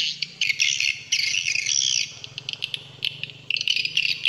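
Swiftlet twittering: bursts of rapid high chirps, the swiftlet call sound played from a phone to lure swiftlets to a new swiftlet house. The chirping dips for a moment past the middle, then picks up again.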